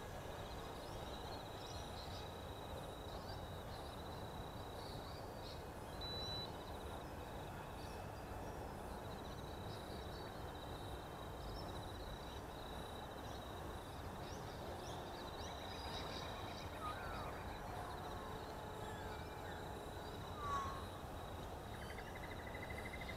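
Quiet open-air ambience: a steady low hiss with a faint, steady high-pitched tone, and a few short bird chirps in the last third.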